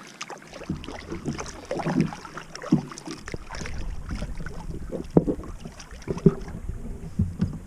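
Scattered knocks and clatter on a kayak, with wind rumbling on the microphone from about halfway through.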